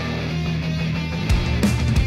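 Background rock music with sustained chords; a drum beat comes in about a second and a half in.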